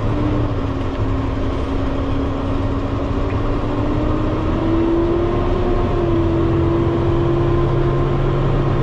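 Peterbilt dump truck's diesel engine heard from inside the cab, pulling a load of gravel along a road. The engine note climbs a little about halfway through as the truck picks up speed, then holds steady.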